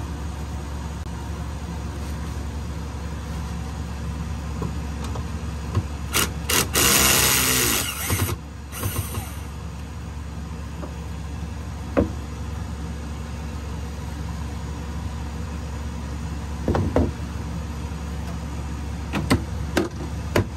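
A small power tool runs in a loud burst of about two seconds, starting about six seconds in, and then a few sharp knocks follow, all over a steady low hum. These are the sounds of taking the door frame off to reach the diesel engine's oil filter.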